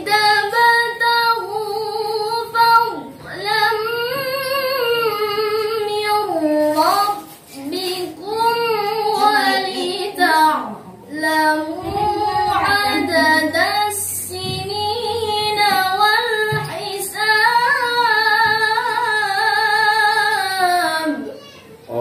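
A young woman reciting the Qur'an solo and unaccompanied in the melodic tilawah style. She sings long, ornamented phrases with wavering held notes and short pauses for breath between them.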